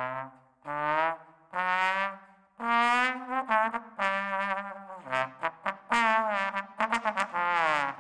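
Slide trombone played solo: a phrase of separate notes, several held with the pitch wavering slightly, and a run of quick short notes near the end.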